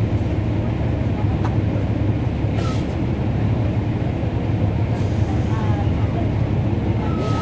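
Cummins ISL9 diesel engine of a NABI 40-foot transit bus running steadily, heard from inside the passenger cabin; the ZF Ecolife automatic transmission is barely audible. A steady high beep starts near the end.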